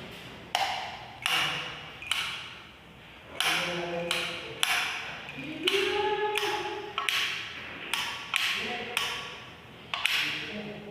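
Footsteps, an even walking pace of about one step every two-thirds of a second, each a sharp knock that rings on in an echoing room.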